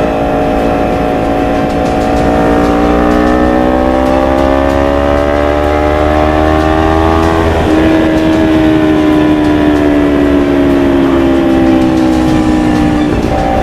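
Kawasaki Ninja 250 FI parallel-twin engine through a full-system Akrapovic GP exhaust, pulling with its note rising steadily for several seconds. About halfway through the note breaks, then sinks slowly, with another break near the end.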